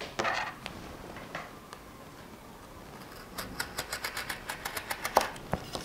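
A utility knife drawn along a metal set square, cutting through a sheet of EVA foam: a quick run of small, sharp clicks in the second half, after a short rustle near the start.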